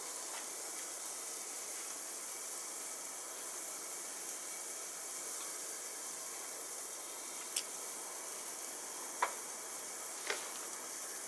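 Steady sizzling hiss from food cooking inside a closed kamado charcoal grill, with three light clicks in the second half.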